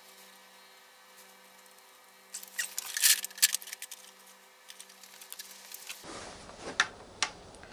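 Light metallic clicking and clinking of a wrench being worked on an oil pump mounting bolt, a quick cluster of clicks about two to three seconds in, over a faint steady hum. A couple of single tool clinks come near the end.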